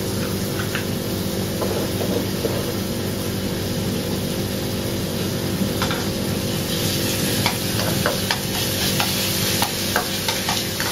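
Chopped garlic sizzling in hot oil in a wok while a spatula stirs and scrapes it. The scrapes and taps come more often from about six seconds in, over a steady low hum.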